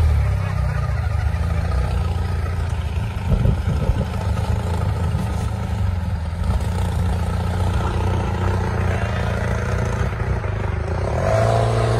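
Rock crawler buggy's engine running at low revs as it crawls over boulders, with a brief clatter about three to four seconds in and the engine revving up near the end.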